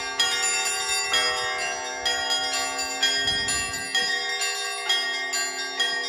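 Russian Orthodox church bells rung in a zvon: several bells of different pitches struck in a quick steady rhythm, a heavier stroke about once a second with lighter strikes between, and the lower bells' tones ringing on under them.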